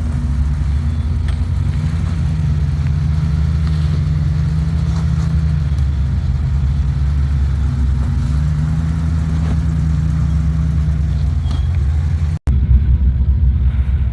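Off-road 4x4's engine running under low, steady load on a rocky trail, its note rising for a few seconds twice as the throttle is pressed. The sound breaks off sharply near the end and the engine sound picks up again at once.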